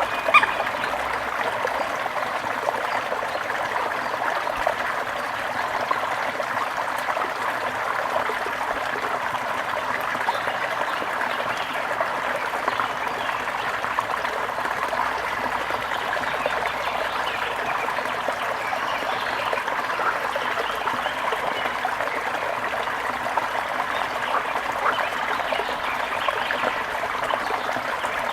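Waterfall: water falling and splashing in a steady, even rush with a trickling texture. A brief sharp sound stands out just after the start.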